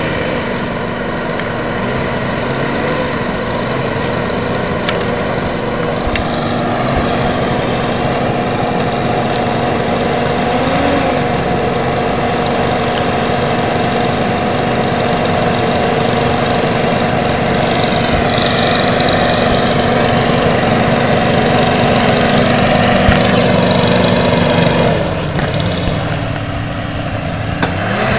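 Hovercraft engine and ducted fan running steadily as the craft travels over the water. Near the end the engine eases off, its pitch dropping, then picks up again.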